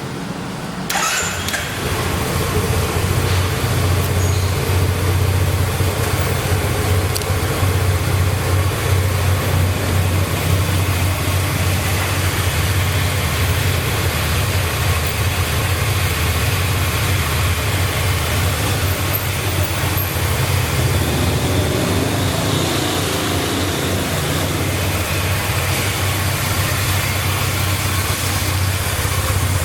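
Yamaha TMAX maxi-scooter's parallel-twin engine on its stock exhaust, starting about a second in and then idling steadily.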